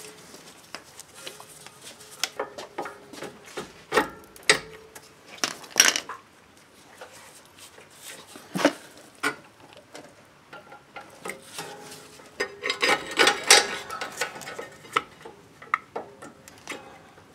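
Scattered metal clinks and knocks of hand tools and the rear brake caliper as it is unbolted and worked off its mount, with a denser run of ringing clinks a little after the middle.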